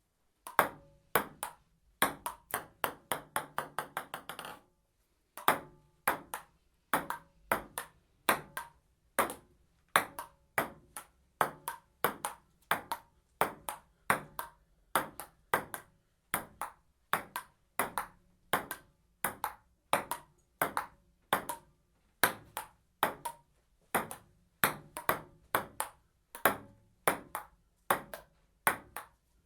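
Table tennis ball clicking sharply. About two seconds in, a ball bounces faster and faster, each bounce quieter, as it settles on the table. From about five seconds on comes a steady rally of paddle hits and table bounces, roughly two clicks a second.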